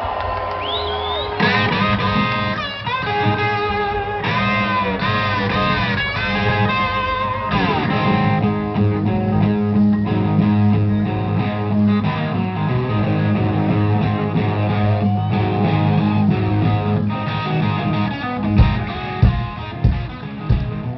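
Live rock band heard from the crowd: an electric guitar riff with bent notes opens alone, then bass and drums join about a second and a half in, with heavy drum hits coming in near the end.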